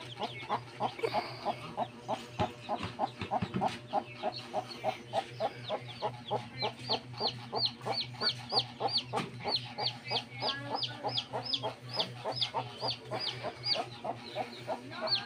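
Native chicken hen clucking in a steady series of short calls, about three a second, while her chicks peep in high, thin repeated calls that grow prominent from about six seconds in.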